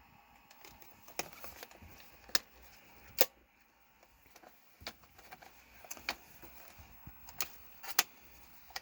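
Irregular sharp clicks and small knocks from a Sony CCD-V110 Video 8 camcorder being handled and its buttons pressed, over a faint low hum.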